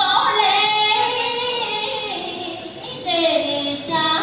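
A woman singing in a high voice in the Vietnamese Trò Kiều folk-theatre style, holding long notes that slide between pitches, with a short break about three seconds in before the next phrase.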